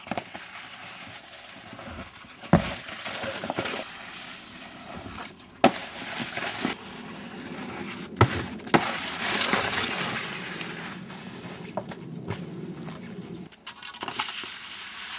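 Snowskate decks scraping and sliding over packed snow, with several sharp clacks of a board landing or striking a snow-covered box, the loudest about two and a half, five and a half and eight seconds in.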